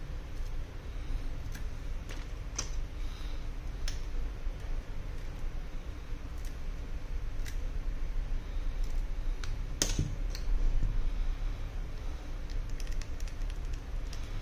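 Light, scattered clicks and ticks of a thin steel pry blade and fingertips working against an iPhone 11 Pro's frame, with one sharper click about ten seconds in, over a steady low hum.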